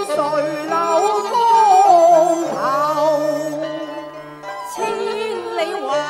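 Cantonese opera music: a traditional Chinese ensemble accompanies the piece, with a melody line that slides and wavers in pitch over sustained and plucked string notes.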